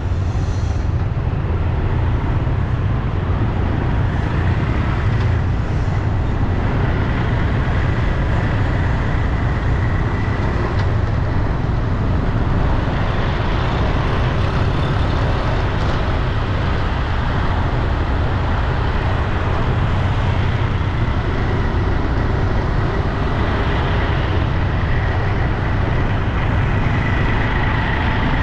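Steady road traffic noise with a deep, continuous vehicle rumble.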